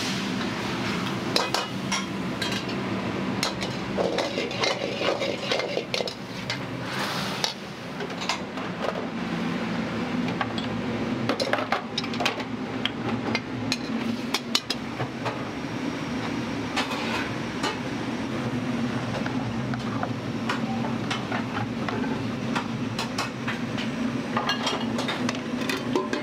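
Metal ladle clanging and scraping against a wok again and again, many sharp irregular strikes, over a steady low rumble from the kitchen.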